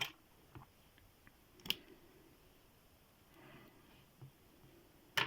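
A few sparse, faint metallic clicks from a tiny 20 mm padlock and its picks being handled.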